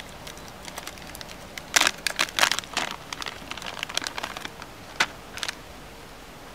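Plastic soft-bait lure packets crinkling as they are picked up and handled: irregular crackles, loudest about two seconds in, with a last few sharp crinkles around five seconds in.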